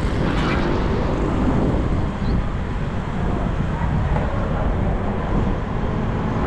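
Steady city street noise with traffic, and wind rumbling on the microphone of a moving bicycle.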